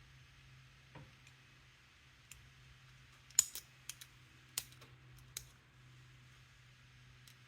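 Lever-lock pick and tensioner working inside a Walsall 2000 5-lever padlock: scattered sharp metallic clicks, with a quick cluster in the middle and the loudest about three and a half seconds in, over a faint steady hum.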